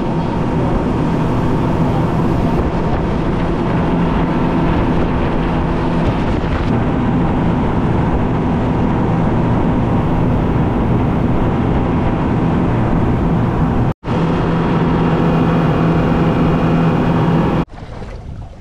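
Charter boat's engine running at cruising speed under way, a steady engine note with wind and water rushing past. It breaks off for an instant about three-quarters of the way through, then cuts off near the end, leaving quieter wind and water.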